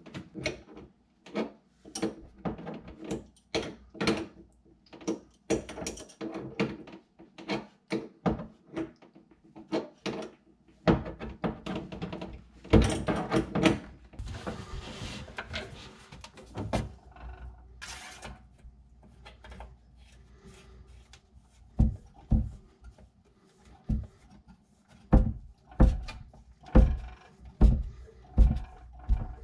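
Hands working plumbing fittings under a sink: clicks, taps and knocks as a water supply line's nut is threaded onto a brass shut-off valve and the faucet connection. A louder rustling stretch comes about halfway through, and a few sharp knocks near the end.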